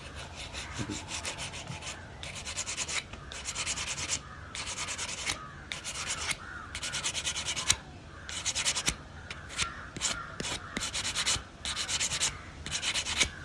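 Hand sanding with sandpaper over dried car body filler on a wooden chair: a steady run of scratchy back-and-forth strokes, roughly one a second.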